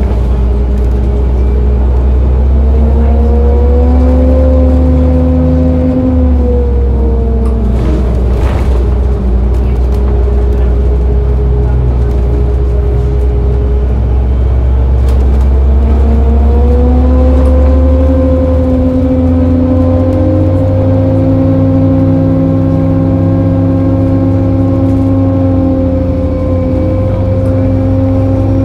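2006 Orion VII city bus standing and running, heard from behind: a steady low rumble under whining tones. The whine rises about four seconds in, drops back a couple of seconds later, then rises again about sixteen seconds in and holds.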